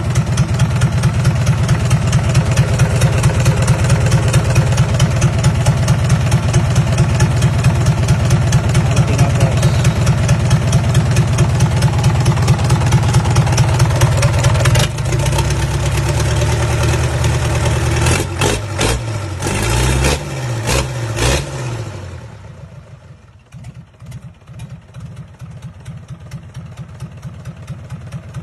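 Mitsubishi PS100 four-cylinder diesel truck engine, out of its vehicle, running at a fast idle. It is revved up and down a few times about two-thirds of the way through, then drops to a slower, quieter idle.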